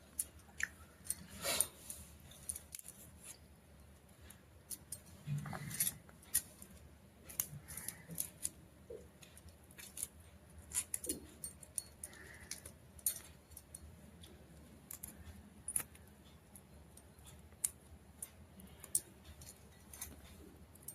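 A kitchen knife cutting vegetables on a board: light, irregular clicks and taps with a few soft thumps.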